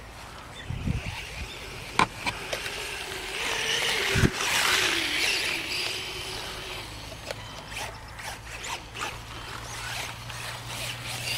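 Brushless electric motor of a Losi 1/4-scale RC motorcycle whining, its pitch wavering up and down with the throttle as the bike runs across rough grass. There are two sharp knocks about two and four seconds in, the second the loudest.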